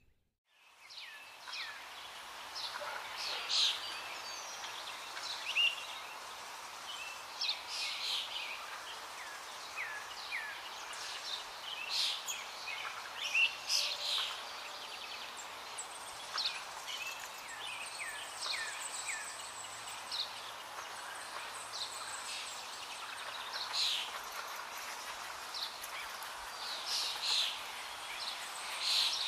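Small birds chirping and calling in many short, scattered notes over a steady outdoor background hiss.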